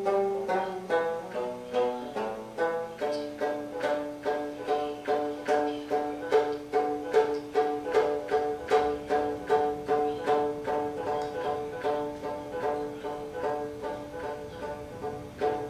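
Music on a plucked string instrument: quick notes that change pitch at first, then settle about three seconds in into a steady repeated figure of plucked notes, a couple a second.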